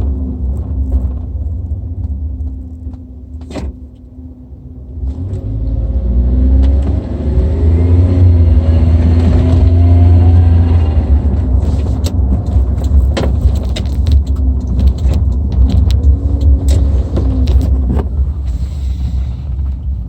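Suzuki Jimny JA22's turbocharged K6A three-cylinder engine running, revved up with its pitch rising over several seconds about a quarter of the way in, then settling back to a steady run. It carries the odd noise that the owner suspects is a failing RHB31 turbo, though he allows it could be something else.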